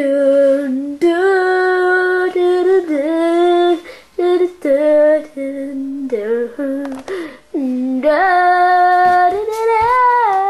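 A child's voice singing a melody in long held notes, with short breaks and pitch slides between phrases.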